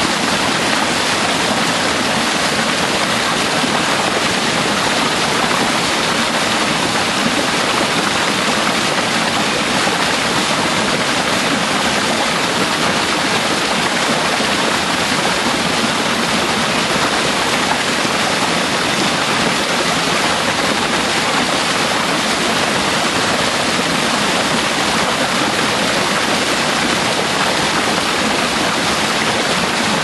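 Small waterfall in a rocky mountain stream, water pouring through a narrow chute between boulders: a steady, loud rushing, heard from right beside it.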